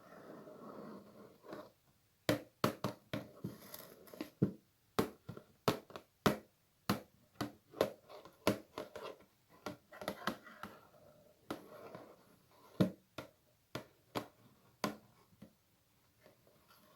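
Something crinkly rustled and handled by hand close to the microphone: a soft rustle, then a long run of sharp, irregular crackles and snaps, several a second, thinning out near the end.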